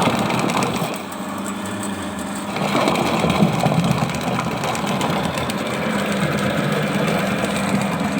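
Motorised spiral-cable drain cleaning machine running steadily with a continuous mechanical hum. It eases off about a second in and grows louder again near the three-second mark.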